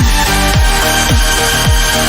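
Electronic background music with a steady beat: a deep kick drum about twice a second, each hit a quick falling bass thump, over held synth tones.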